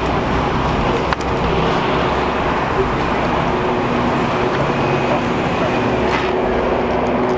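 Steady street and vehicle noise, with indistinct voices underneath.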